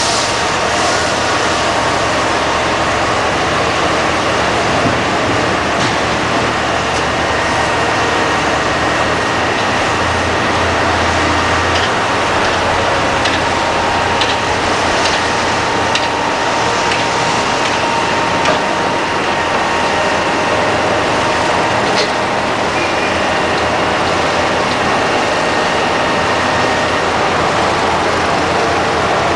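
Crawler excavator diesel engines running steadily under load while digging, with scattered knocks and clinks of rock in the bucket.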